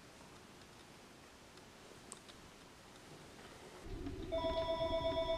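Quiet room tone with a faint tap, then about four seconds in a mobile phone starts ringing with an electronic ringtone of several held tones pulsing in level: the incoming call from the dialled number.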